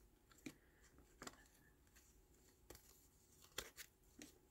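Faint handling of small cardstock swatches being sorted by hand: a few short, soft taps and rustles of card against card.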